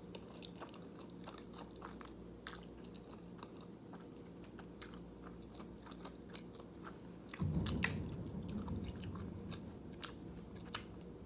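Close-up chewing of jjajangmyeon (thick black bean noodles), with small wet mouth clicks. About seven seconds in, a low rumble of thunder swells and fades under the chewing.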